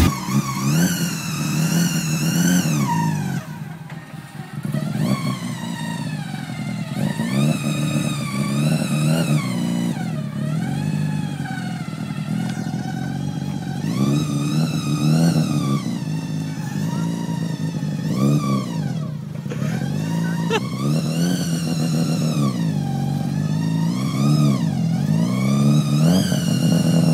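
Car engines being revved over and over in short blips, the pitch rising and falling each time: first the LS-series V8 swapped into a Mitsubishi Pajero, then the swapped engine of a parked R32 Nissan Skyline.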